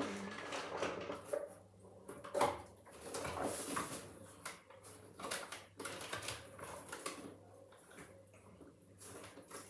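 Rummaging through a zippered toiletry bag on a bathroom counter: irregular rustling and small plastic clicks and knocks as items are shifted about inside.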